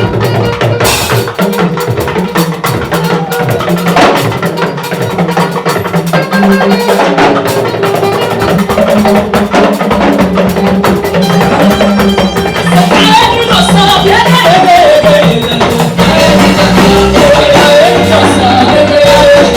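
Upbeat gospel praise music with drums and percussion keeping a steady beat, with some singing.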